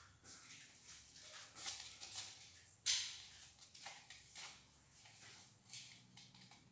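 Faint rustling and tapping of hands working a foam cup and craft-foam strips, with one sharper click about three seconds in.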